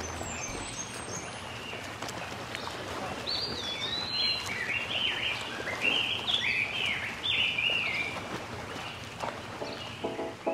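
Songbird singing over a steady background hiss: a few high chirps at first, then about three seconds in a varied run of quick rising and falling whistled phrases lasting several seconds.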